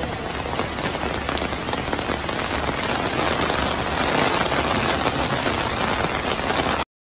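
Heavy rain pouring onto a flooded street, a dense steady hiss of drops striking the standing water; it cuts off suddenly near the end.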